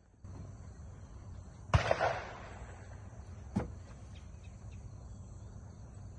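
A single shotgun shot at a thrown clay target about a second and a half in, with a short echo, followed about two seconds later by a fainter sharp click.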